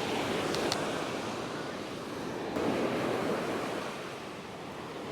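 Ocean surf washing onto the beach: a wave breaks right at the start and another about two and a half seconds in, each rush of water fading away, with some wind on the microphone.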